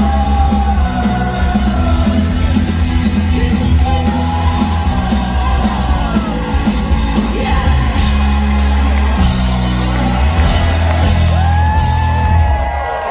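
Ska-punk band playing live at full volume, with electric guitars, bass guitar and drums under sung and yelled vocals. The band stops just before the end.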